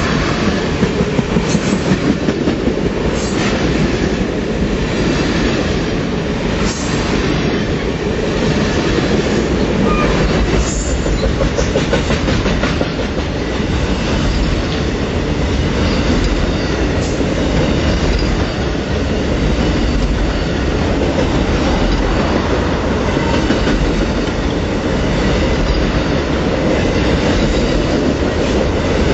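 Amtrak Auto Train cars rolling past close by: a steady rumble of steel wheels on rail, first under bi-level passenger cars, then under long enclosed autorack car carriers, with wheels clicking over rail joints.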